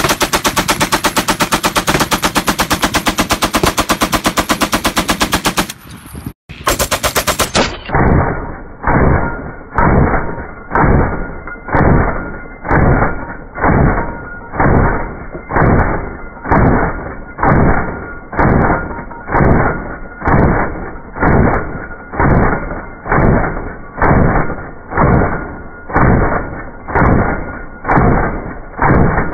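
Vickers water-cooled, belt-fed machine gun firing a sustained burst, a fast even rattle of shots that stops about six seconds in. After a short pause the firing plays slowed down, each shot drawn out into a deep, muffled boom at a little under two a second.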